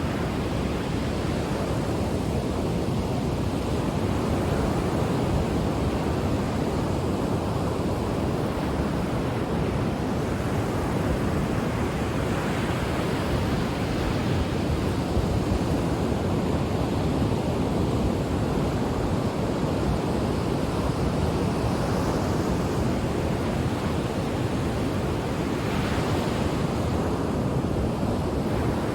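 Ocean waves breaking on a shore: a steady rush of surf that swells now and then as waves come in.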